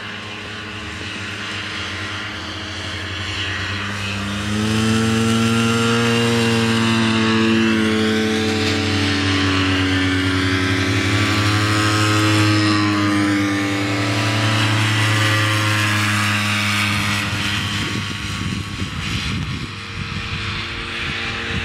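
Vintage two-stroke snowmobile engines racing past at high revs, a steady buzzing engine note. It swells sharply about four seconds in, holds with small shifts in pitch, and falls back near the end.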